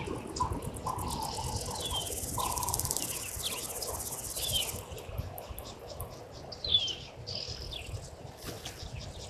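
Bushveld ambience: insects buzzing in a dense, high-pitched chorus that stops about five seconds in, while a bird repeats a short descending whistled call a few times.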